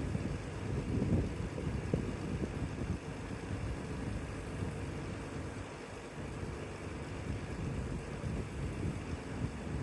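Pickup truck engine running and rumbling through newly fitted equal-length downpipes and high-flow catalytic converters, with small surges in the rumble about one and two seconds in.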